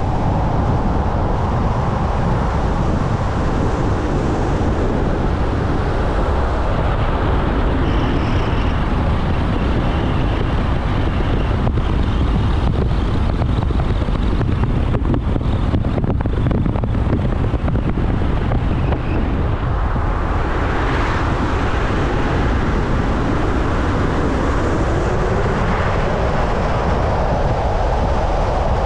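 Steady road noise of a car being driven at road speed: tyre rumble and engine from the moving car, with no breaks.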